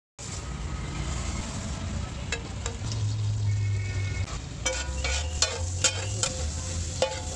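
Butter sizzling and foaming on a large flat metal tawa griddle. In the second half a metal spatula clanks and scrapes against the tawa in a run of sharp, ringing strikes.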